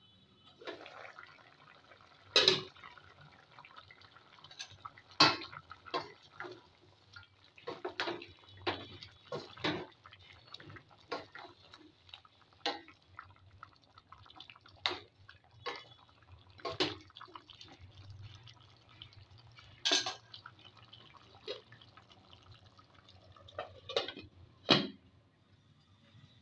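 A cooking utensil clinking and scraping against a metal cooking pot while pieces of chicken are stirred, in irregular sharp knocks, several of them loud, over a low steady hum.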